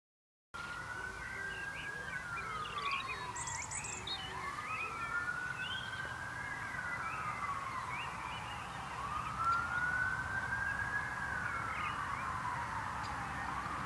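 A siren wailing, its pitch sliding slowly up and then down about every four and a half seconds, over a low steady rumble, with short high chirps in the first few seconds.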